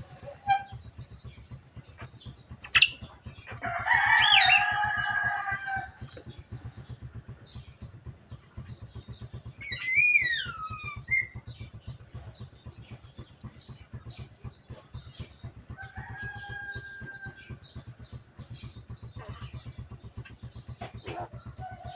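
Javan myna calling: a loud harsh call about 4 seconds in, a whistle that falls in pitch around the middle, and a held note later, with scattered sharp clicks between.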